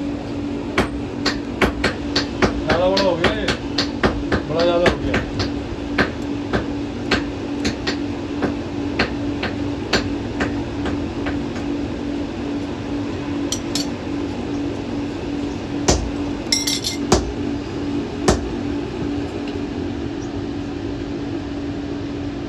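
Hand hammer striking a thin iron strip held in tongs on a steel anvil, about two blows a second for some ten seconds, forging it into a ring; then a few scattered strikes and clinks. A steady low hum runs underneath.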